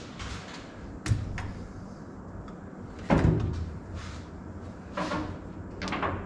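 A handful of sudden knocks and clunks of hard objects being handled, the loudest about three seconds in, over a steady low hum.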